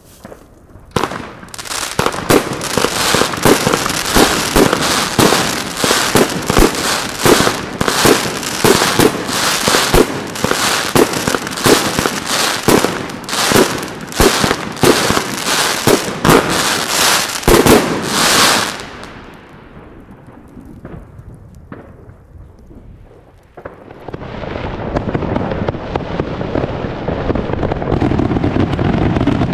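Cairo Crackling consumer firework going off: a dense run of sharp bangs and crackles, several a second, for about seventeen seconds, then dying away. A steady rushing noise starts about twenty-four seconds in.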